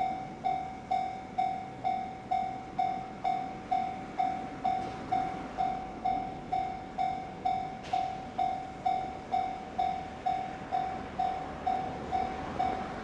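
Japanese level-crossing warning alarm ringing steadily, about two evenly spaced chimes a second. A faint rushing noise of an approaching freight train lies underneath and grows slightly near the end.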